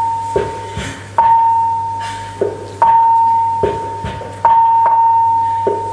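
Wurlitzer Sideman 5000 vacuum-tube drum machine playing a slow rhythm pattern. A ringing high block tone, its tempo block voice just retuned on a trimmer pot, sounds about every second and a half, with lower drum hits and clicks in between.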